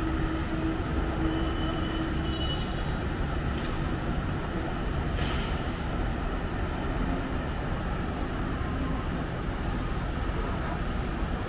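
Steady low noise of city road traffic heard from a high window, with a steady hum that stops about two seconds in and two brief hisses about a second and a half apart near the middle.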